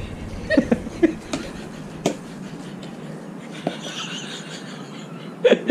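Short bursts of a woman's laughter, with a few knocks of a wooden pestle in a clay mortar.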